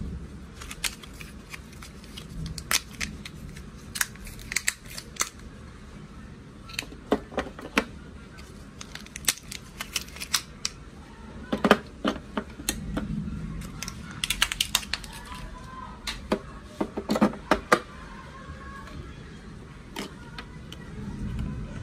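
Irregular plastic clicks and taps as batteries are pushed out of a blister pack and snapped one by one into the battery compartment of a plastic toy oven.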